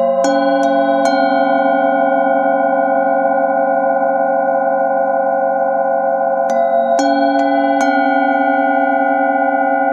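Singing bowls struck with a mallet, several bowls ringing together in a sustained, slowly wavering chord. A quick run of three strikes comes near the start and four more between about six and a half and eight seconds in, each renewing the ringing.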